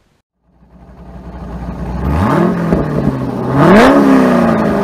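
Car engine revving. It fades in and blips up in pitch twice; the second rev climbs higher and is the loudest, then the revs ease slowly back down.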